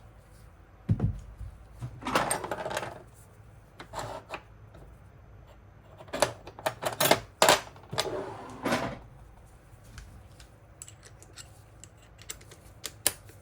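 Chainsaw parts and hand tools being handled during disassembly: scattered clicks and taps with a few short rustles, and a dull knock about a second in.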